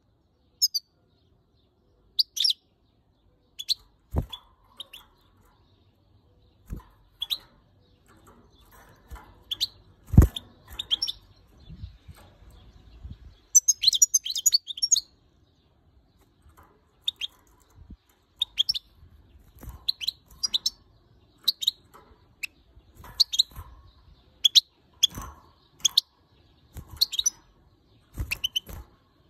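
European goldfinch giving short, high call notes in irregular bouts, with a brief rapid run of chatter about halfway through; the title takes these for the angry calls of a female upset by the camera. A few sharp knocks sound among the calls, the loudest about ten seconds in.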